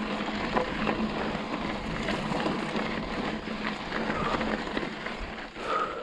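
Hardtail mountain bike rolling fast down a dry dirt trail: steady tyre noise on dirt with frequent small rattles and knocks from the bike.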